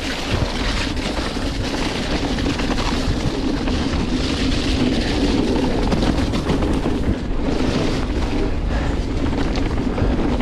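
Giant Reign E+ electric mountain bike descending a wet, muddy trail: steady tyre noise on mud with the bike rattling over the rough ground.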